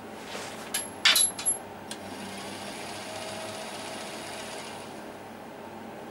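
A few sharp clicks as a bare +5 V wire is touched to the contacts of a VHS deck's brushless DC capstan motor, then the motor spins up and runs with a faint steady whine for about three seconds before it stops.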